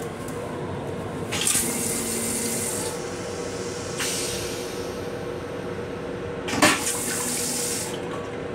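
Steady hum inside an M7 commuter railcar's restroom, broken by three spells of hissing, with a sharp knock just before the last one.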